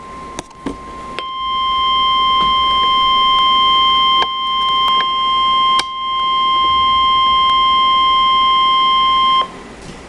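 NOAA Weather Radio receiver sounding the National Weather Service's steady 1050 Hz warning alarm tone in a test broadcast. The tone swells louder and harsher in about the first second, holds, then cuts off abruptly about nine seconds in. A few sharp clicks break in along the way.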